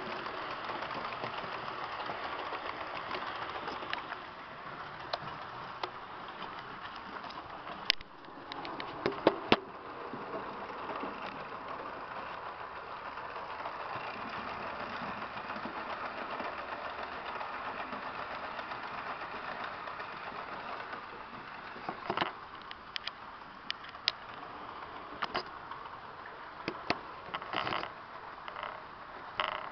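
H0 scale model trains running on the layout track: a steady whirring rumble from motors and wheels, with sharp clicks from time to time, the loudest a few seconds apart about nine seconds in and a run of them near the end.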